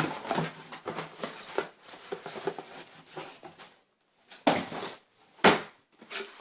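Shoe box and packaging being handled: rustling and light knocks, with two louder rustles about four and a half and five and a half seconds in.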